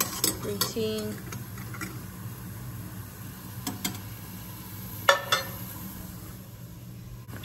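A utensil clinking and knocking against a cooking pot a few times, loudest about five seconds in, over a steady low hum.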